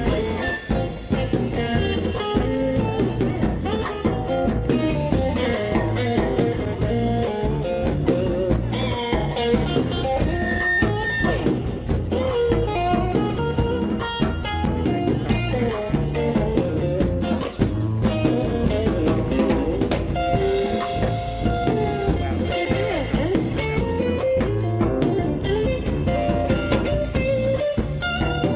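Blues-rock band playing an instrumental break with no singing: a guitar-led passage over a drum kit.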